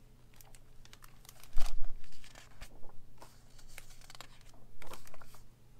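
A hardcover picture book being opened and its pages turned by hand, with paper-and-cover handling noise. There are two louder bouts of page movement, one about a second and a half in and one near the end.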